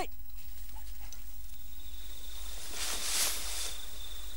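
Quiet outdoor ambience that opens with a brief sharp click, with a soft rustle of vegetation about three seconds in and a faint steady high-pitched tone over the second half.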